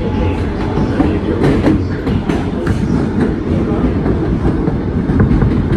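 Kawasaki R160B subway train running between stations: a steady rumble with wheels clicking irregularly over rail joints.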